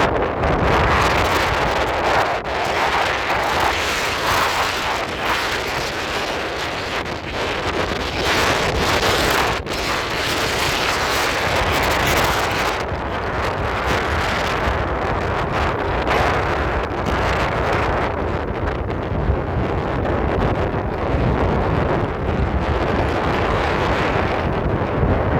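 Strong wind buffeting the microphone in a steady, heavy rumble over the rush of storm surf breaking on the shore.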